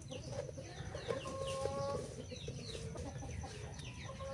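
Chickens clucking and calling, with many quick high falling chirps and a couple of held calls lasting about half a second each.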